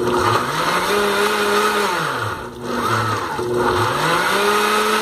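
Countertop electric blender running, grinding boiled tomatoes and chiles with garlic, onion and cilantro, no water added, into salsa. The motor's pitch sags twice in the middle and climbs back up.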